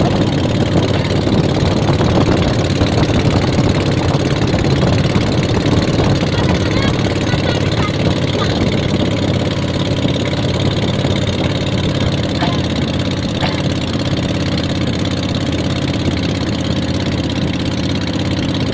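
A boat's engine running steadily, a dense low drone close by.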